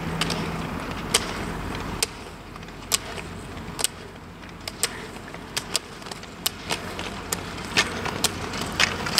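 Roller skis rolling on asphalt, with sharp clicks of ski-pole tips striking the pavement as two skiers skate. The pole clicks come irregularly, about one or two a second, and more often near the end.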